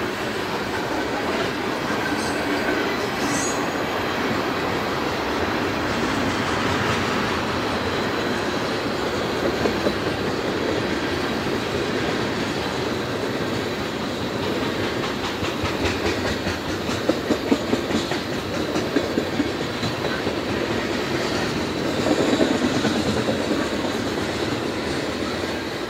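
Railway tank cars of a freight train rolling past: a steady rumble of steel wheels on rail, with runs of rhythmic wheel clicks over rail joints about ten seconds in, again from about sixteen to twenty seconds, and near the end.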